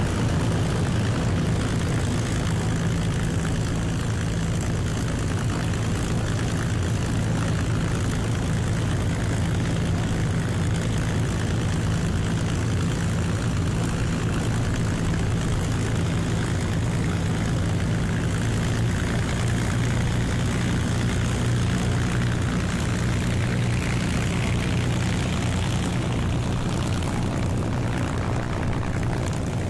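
Piston engines and propellers of taxiing World War II warbirds, a steady, loud drone.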